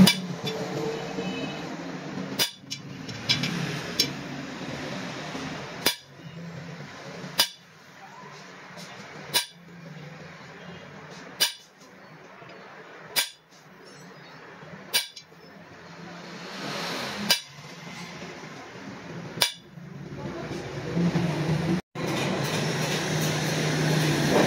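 Sharp metallic clinks about every two seconds as a hand tool strikes a chrome 72-spoke motorcycle rim, each ringing briefly. Near the end a drill press runs steadily, drilling the rim.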